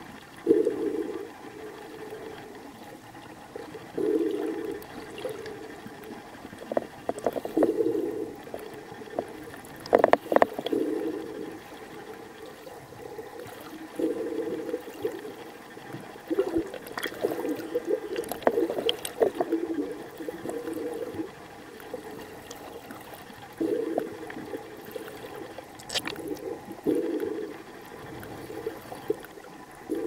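Water rushing and sloshing in bursts of a second or two every few seconds, heard underwater just below the surface, from a freediver swimming hard, with a few sharp clicks in between, the loudest about a third of the way through.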